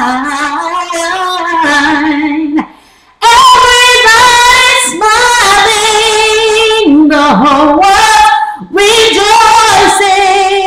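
A woman singing unaccompanied, holding long notes with vibrato and sliding runs. There are two short pauses, about three seconds and eight and a half seconds in.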